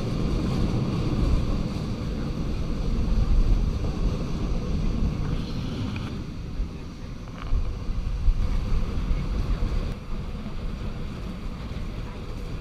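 Passenger train running along the track, heard from an open carriage window: a steady low rumble of the coaches, with wind buffeting the microphone.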